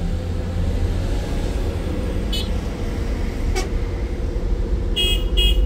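Excavator's diesel engine running steadily under short horn toots, two of them in quick succession near the end.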